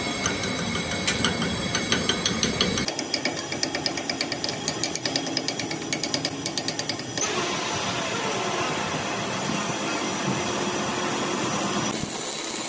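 Chipping hammer striking a fresh weld on a steel camshaft, several quick metal taps a second as slag is knocked off the bead, densest in the first half; a steady noisy hiss follows in the second half.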